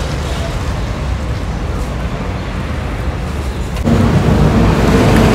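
Wind rumbling on the microphone over street traffic noise. About four seconds in it cuts to a louder stretch with a steady low hum.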